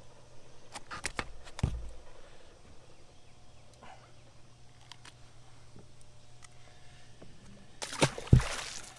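Handling noises on a boat deck as a caught fish is unhooked: a few sharp clicks and a knock in the first two seconds, then quiet over a steady low hum. A brief louder rustling burst with a thump comes near the end.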